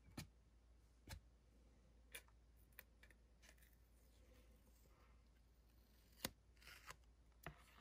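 Very faint, scattered clicks and snips, about seven over several seconds and the loudest about six seconds in: a strip of thin tar paper roofing being cut and handled.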